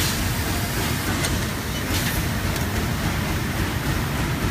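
Steady low background rumble, with a few light clicks of painted sheet-metal frame parts being handled and fitted together.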